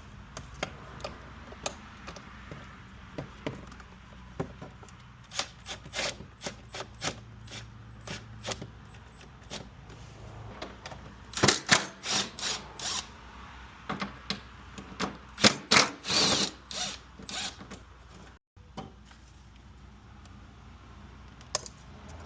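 Clicks, knocks and clatter of tools and fittings as parts are taken off a Chevrolet Express engine bay, with two quick runs of loud clicks about halfway through.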